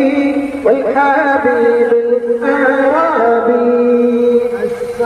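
Arabic devotional song chanted in a melodic singing voice, phrases gliding up and down between long held notes.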